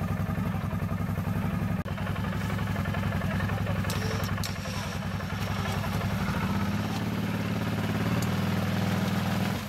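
Arctic Cat ATV engine running under throttle while the quad is stuck in deep water and mud, its wheels spinning and churning the water as it tries to drive out. The engine note rises a little and grows louder about seven seconds in.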